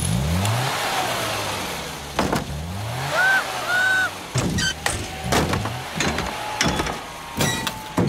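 Cartoon Mini's engine revving up twice as it is put in gear, followed by a run of sharp knocks and thumps.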